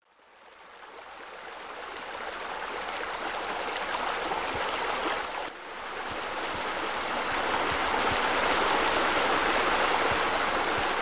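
Steady rush of running, splashing water, as from a pool's spa spillover and bubblers. It fades in over the first couple of seconds and dips briefly about five and a half seconds in.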